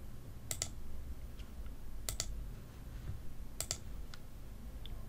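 Computer mouse clicking three times, about a second and a half apart, each click a quick pair of ticks, over a faint steady low hum.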